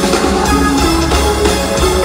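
Loud live band music in an arena, with a drum kit playing under held melodic notes.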